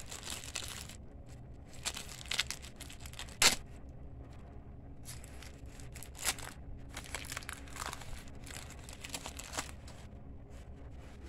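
A 1992-93 NBA Hoops Series 1 trading-card pack being torn open by hand: irregular crinkling and tearing of the wrapper, with one sharp rip about three and a half seconds in.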